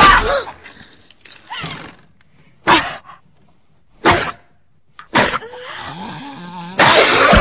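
Sounds of a violent struggle inside a car: four short, sharp gasps and knocks about a second apart, then a wavering groan, and an old woman's loud scream bursting in near the end.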